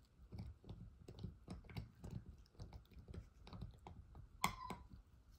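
A small dog gnawing and crunching on a chew stick: faint, irregular clicks and crunches, with one louder crack and a short squeak about four and a half seconds in.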